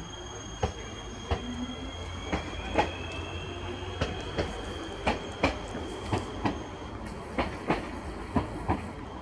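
Stadler Flirt 3 electric multiple unit rolling slowly, its wheels clicking in close pairs over rail joints about once a second, over a steady high electric whine that rises in pitch in the first few seconds.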